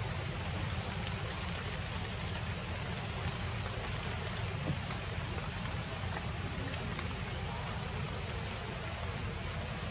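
Steady rushing outdoor ambience with a low rumble underneath, the even noise of rain or running water, with a single faint tick about halfway through.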